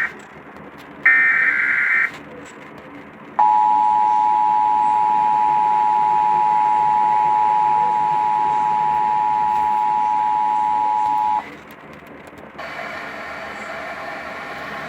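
Emergency Alert System broadcast tones: a harsh, warbling SAME data-header burst about a second long, then after a pause about eight seconds of the steady two-tone EAS attention signal, which cuts off abruptly. A quieter, steady buzzy sound follows near the end.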